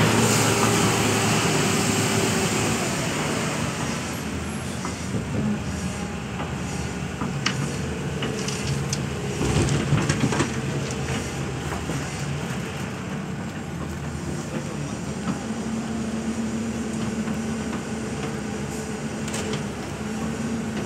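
Hyundai crawler excavator's diesel engine running steadily under hydraulic load as the machine swings and works its bucket, loudest in the first couple of seconds. About ten seconds in, a bucketful of soil and rubble is dumped into a dump truck's steel bed with a cluster of knocks and thuds.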